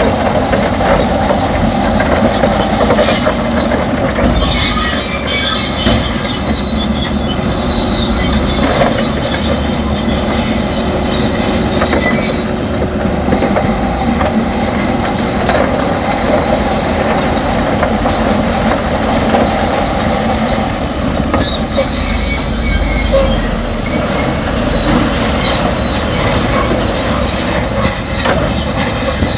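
Shantui crawler bulldozer working, its diesel engine running under a steady clanking of the steel tracks, with high track squeals about four seconds in and again near the end.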